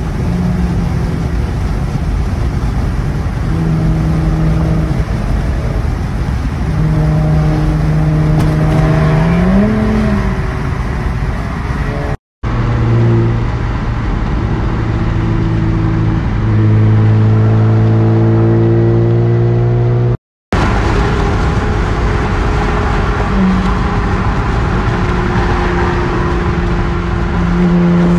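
Nissan Altima's engine droning inside the cabin at highway speed, its pitch holding and then rising as the car accelerates in traffic. The sound drops out briefly twice.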